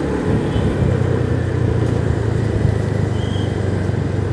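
Motorcycle riding along a road: a low engine hum under steady wind and road rush on the action camera's microphone.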